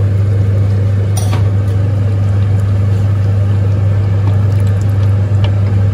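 A steady low hum with an even rushing noise under it, over a pan of mutton stew simmering on the hob, with a brief clink about a second in.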